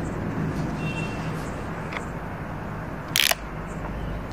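A full-face motorcycle helmet being pulled on over the head, with a short scrape about three seconds in, over a steady low hum.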